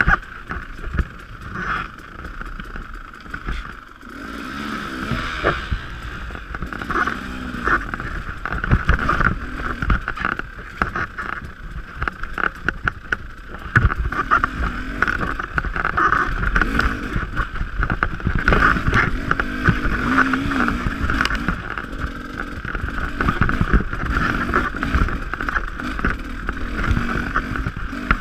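Dirt bike engine running under load, its pitch rising and falling as the throttle is worked along a rough singletrack trail, with frequent knocks and rattles from the bumps and wind on the microphone.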